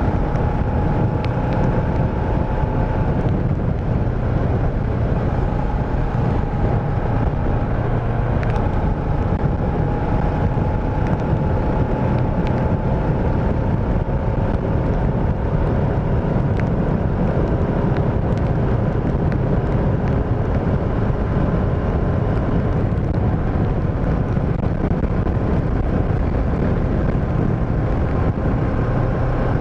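Motorcycle engine running at a steady cruise, its note creeping slowly up in pitch, with wind rushing over the microphone.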